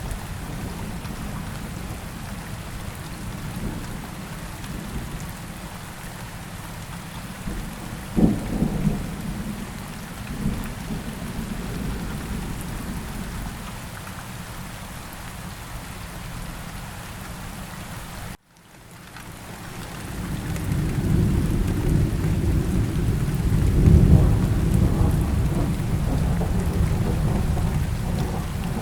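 Steady heavy rain with rolling thunder, and a sharp thunderclap about eight seconds in. The sound cuts out for a moment about two-thirds of the way through, then the thunder swells back up to a loud rumble near the end.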